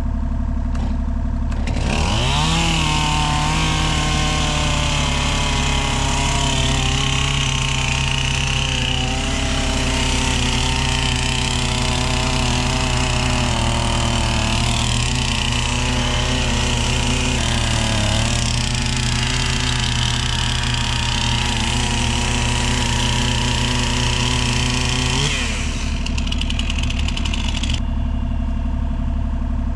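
Two-stroke chainsaw revving up about two seconds in and running at high throttle through a cut for over twenty seconds, its pitch sagging slowly as it works through the wood, then dropping off near the end. A steady low engine rumble runs underneath.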